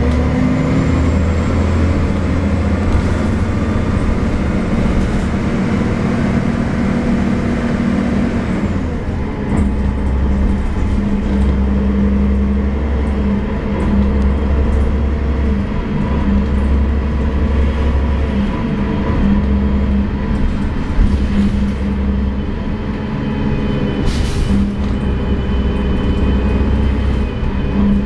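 Cummins L10 diesel engine of a 1990 Gillig Phantom transit bus running under way, heard from inside the passenger cabin as a steady low drone whose pitch shifts as the bus drives. The upper part of the sound drops away about eight or nine seconds in, and a short hiss comes about 24 seconds in.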